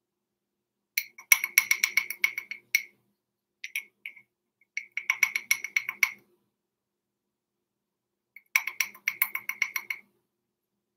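Metal measuring spoon clinking rapidly against the rim and inside of a small glass jar of baking powder as two teaspoons are scooped out and levelled, in three quick runs of bright ringing taps.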